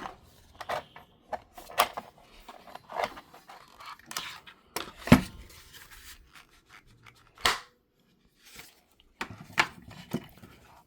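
Hard plastic toy pieces being handled and fitted together: scattered clicks, taps and rubbing from a Masters of the Universe Origins Stridor horse figure and its parts, with a sharper knock about five seconds in and another about two seconds later.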